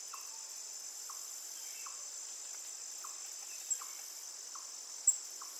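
Crickets chirping in a steady high trill, night-time ambience, with fainter short chirps recurring under a second apart and two brief sharp chirps in the second half.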